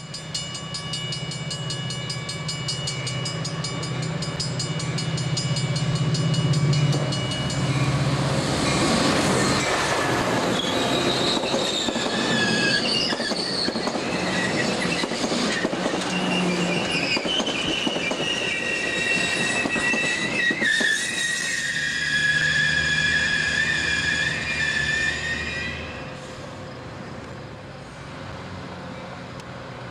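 Metra commuter train of stainless-steel bilevel cars passing close by, with loud wheel-and-rail noise and high, wavering wheel squeal through the middle that drops away near the end. Steady tones and a low hum come first, as it approaches.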